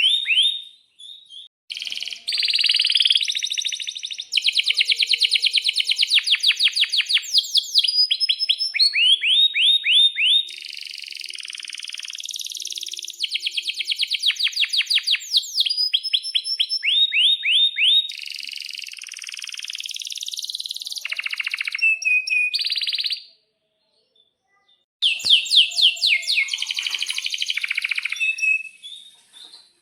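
Male canary singing a long song of fast rolling trills, runs of quick repeated down-slurred notes alternating with buzzy phrases. The song breaks briefly about a second in and stops for nearly two seconds about three-quarters of the way through before starting again.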